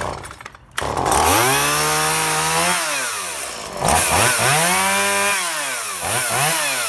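Gasoline chainsaw's two-stroke engine starting about a second in, then revved up and allowed to drop back twice, with two quick throttle blips near the end.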